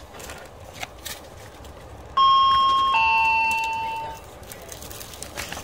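A two-note falling chime from a train's public-address system, a higher note then a lower one, starting about two seconds in and fading away over roughly two seconds. Faint crinkling and clicking of a plastic rice-ball wrapper being handled around it.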